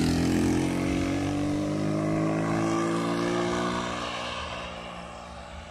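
Motorcycle engine running past close by, a steady engine note that fades away over the last couple of seconds as it rides off.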